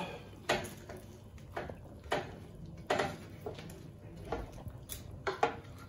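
Silicone spatula scraping and knocking against a metal roasting tin while chicken wings and vegetables are stirred in it: a scattering of short, irregular scrapes and knocks.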